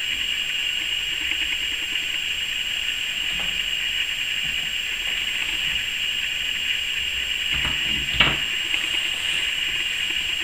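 A steady hiss, with a few light knocks of wooden clock parts being handled and fitted together by hand, the sharpest about eight seconds in.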